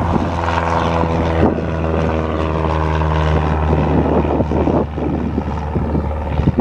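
1979 Cessna 172N Skyhawk's four-cylinder Lycoming engine and propeller running at full take-off power as the plane lifts off and climbs away: a loud, steady drone.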